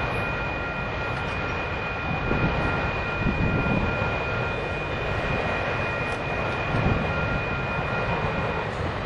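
Cars and a pickup truck driving past on the road, swelling in and out over a steady low rumble. A thin steady high whine runs along underneath and stops shortly before the end.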